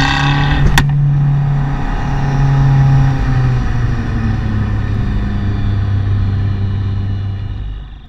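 Abarth 595 Turismo's tuned 1.4-litre turbo four-cylinder running steadily through its Akrapovic exhaust on the road. There is a single sharp crack about a second in. The engine note steps lower about three and a half seconds in, and the sound fades out at the very end.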